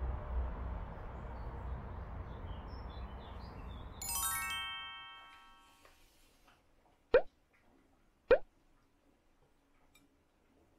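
Low rumble of wind on the microphone. About four seconds in, a quick run of bell-like chime notes rings out and fades. Then come two sharp hollow knocks about a second apart: plastic food tubs set down on a kitchen counter.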